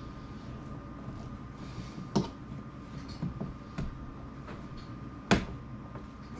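A few sharp clicks and knocks, the loudest about five seconds in, over a steady low hum and a faint steady whine: handling noises of a lock strip install tool working a windshield's rubber locking seal.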